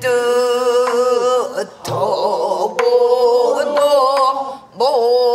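Korean folk-song singing in long, wavering held notes, with a couple of strokes on a buk barrel drum about two and three seconds in.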